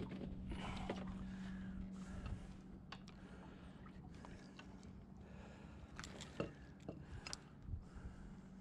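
Faint clicks and scrapes of metal pliers and a jig head as a hook is worked out of a speckled trout's mouth, sharpest near the end. A steady low hum stops about two seconds in.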